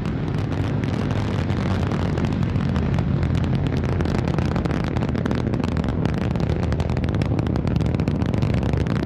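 Antares rocket's first stage, with two RD-181 kerosene engines at full thrust, in climb: a steady deep rumble laced with dense crackling.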